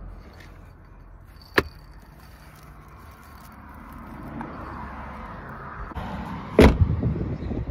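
A car's rear door slammed shut about two-thirds of the way in, the loudest sound here, followed by a few lighter knocks. Earlier there is a single sharp click while a baby's car seat is being handled.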